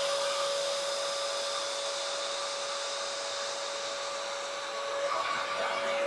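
Household vacuum cleaner running steadily: a constant airy whoosh with a faint steady tone running through it.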